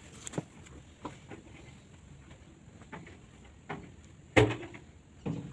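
Hands pressing flour dough around the rim of a metal steamer pot's lid to seal it, with scattered light knocks and taps against the pot. One louder knock comes about four and a half seconds in.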